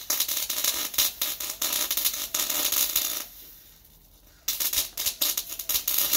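Electric arc welding: a steady crackling sizzle of the arc on steel. It stops a little after three seconds in and strikes up again sharply about a second later.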